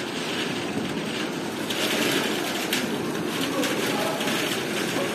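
Indistinct mix of voices from players and spectators during a children's football match, with scattered knocks over a steady background din.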